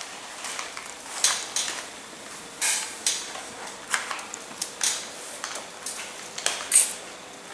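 Plastic Rubik's cube faces being twisted by hand: irregular sharp clicks and clacks, a dozen or so, coming unevenly.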